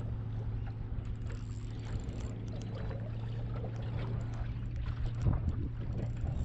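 Small boat sitting on choppy water, with water lapping at the hull and wind on the microphone over a steady low hum, broken by scattered small clicks.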